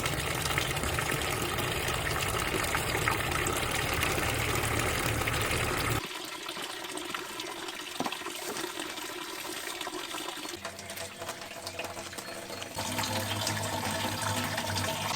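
Flowing water, a steady rushing stream, cutting off suddenly about six seconds in to quieter outdoor sound. A low steady hum comes in during the last few seconds.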